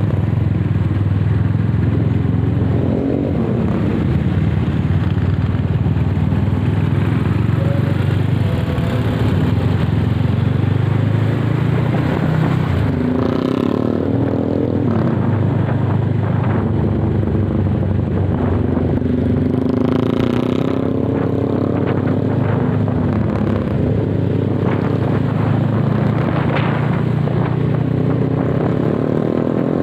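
Honda CB motorcycle engine running steadily while riding along, with road and wind noise, and a few brief rises and falls in engine pitch.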